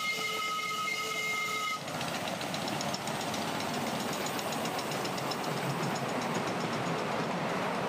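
A miniature railway locomotive's whistle sounding one steady note that cuts off about two seconds in. Then comes the steady running noise of the train, with a fast light ticking.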